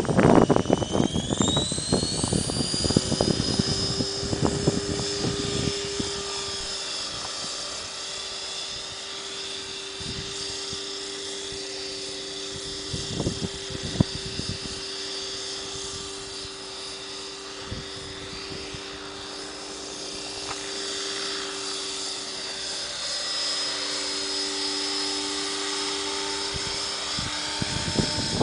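Align T-Rex 500 electric RC helicopter spooling up: a high motor whine rises over the first three seconds and then holds as a steady whine with a rotor hum as it lifts into a hover. Gusty wind rumble on the microphone fades over the first several seconds.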